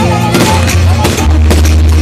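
Loud music with a deep, steady bass line, with a few sharp bangs of fireworks bursting over it.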